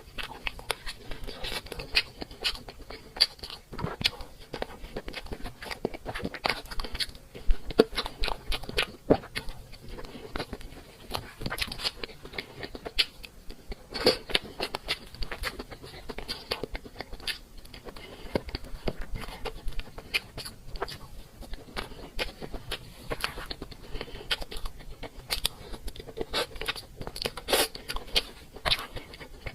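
A person eating cake: chewing and biting with a dense, irregular run of small crunchy clicks.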